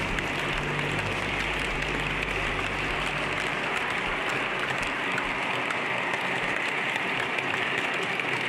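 Steady hissing rattle of an HO-scale model freight train running on its track, with a low hum underneath that fades out about halfway.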